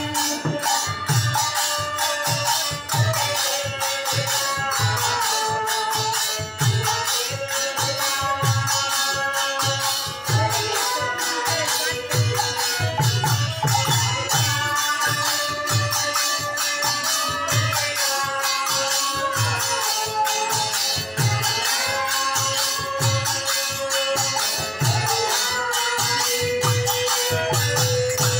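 Devotional kirtan music: a harmonium holding the tune under group singing, a khol clay drum keeping a steady low beat, and small brass hand cymbals (kartal) chinking continuously.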